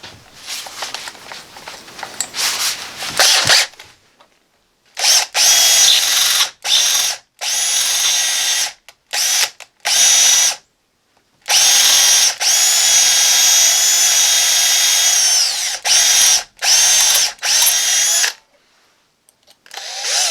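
Electric hand drill boring a pin hole through a heart pine knife handle, run in a string of short trigger bursts and one long steady run whose whine drops as it slows near the end. The clicks and rattling in the first few seconds come from handling the drill as the next larger bit is fitted.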